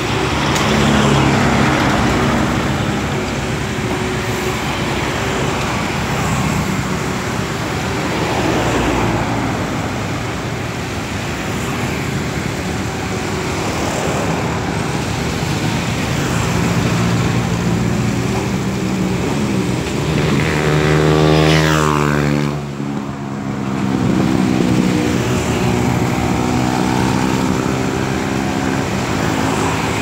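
CAT 320D hydraulic excavator's diesel engine running steadily as the machine works, with road traffic going by. About two-thirds through, a passing vehicle's engine rises loudly over it and then drops away abruptly.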